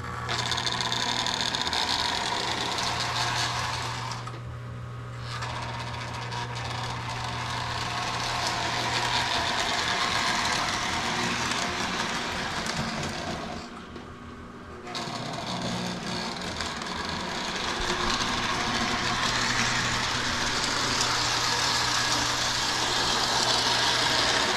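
Lionel motorized fire car running on its newly replaced drive-wheel belts: a steady small electric motor hum with the wheels rattling along steel three-rail track. It drops away briefly twice, about 4 seconds in and about 14 seconds in.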